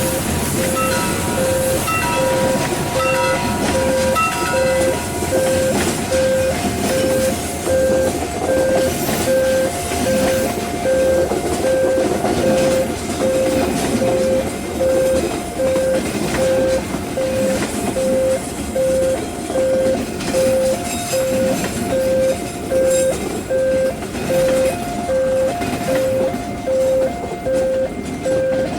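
A train passing by, its wheels rumbling and clattering on the rails. Over it a railway level-crossing alarm rings a steady two-tone beep about twice a second.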